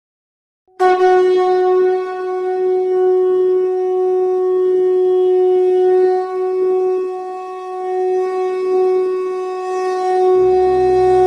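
Conch shell (shankh) blown in one long, unbroken note lasting about ten seconds, its loudness swelling and dipping slightly. A low steady drone comes in beneath it near the end.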